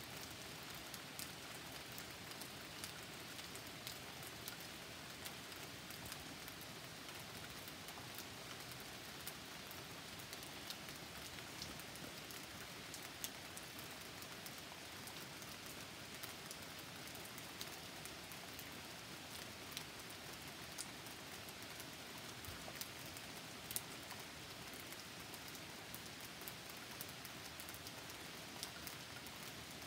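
Steady rain falling, with scattered sharper ticks of single drops landing close by.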